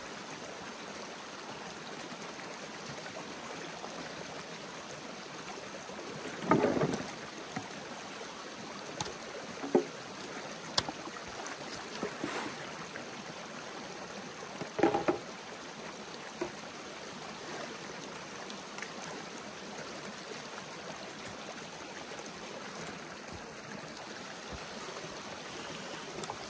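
Shallow snowmelt creek running steadily over rocks. A few splashes and knocks stand out, the loudest about six and a half seconds in and again at about fifteen seconds, as PVC pipe caches are pulled out of the water.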